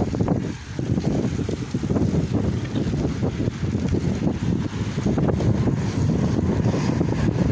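Wind buffeting the microphone of a moving bicycle rider: a loud, irregular low rumble.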